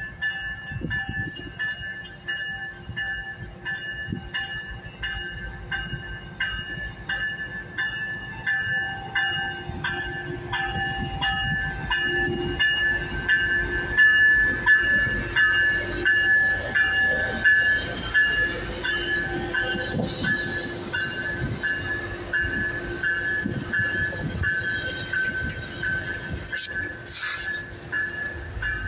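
BNSF diesel-electric freight locomotives rolling slowly past, followed by tank cars, with a low rumble and a steady run of clicks from wheels over rail joints. A steady high-pitched tone sounds throughout.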